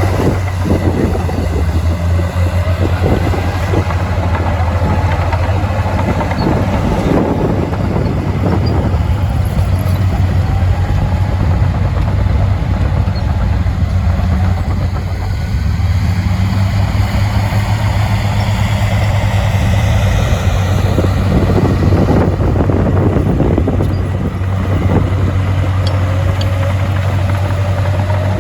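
Heavy earthmoving machine's diesel engine running under load, with a deep steady drone and a higher note that rises and falls several times.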